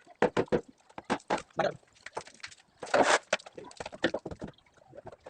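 Irregular knocks and clatter of shuttering being stripped off new concrete: hammer blows and planks and props banging, with a louder scraping crash about three seconds in.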